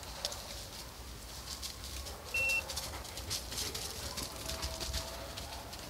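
Deer hounds baying faintly in the distance, with scattered small clicks and one short, high electronic beep about two and a half seconds in.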